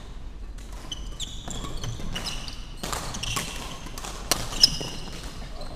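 Badminton rally: shoes squeaking again and again on the wooden court, with the sharp smacks of rackets hitting the shuttlecock. The loudest hit comes a little over four and a half seconds in.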